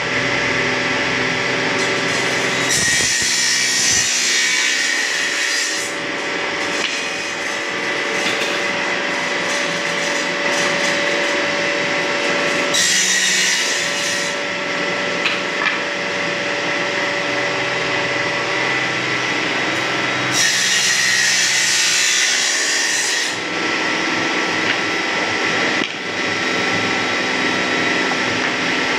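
Table saw running steadily, its circular blade cutting through bundles of wooden moulding strips three times: about three seconds in, about thirteen seconds in and about twenty seconds in. Each cut adds a harsh, high sawing noise for one to three seconds over the motor's hum.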